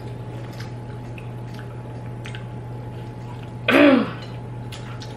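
Quiet eating at a table: faint clicks of a fork and of food being handled over a steady low hum, with one short vocal sound from one of the diners a little under four seconds in.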